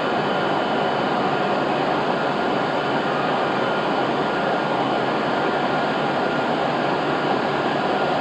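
The E926 East-i Shinkansen inspection train at the platform, making a steady rushing running noise with a few faint high tones held through it.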